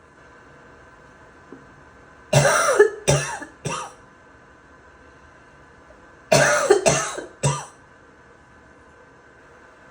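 A person with a wet, barking cough coughing in two fits of three coughs each, about four seconds apart.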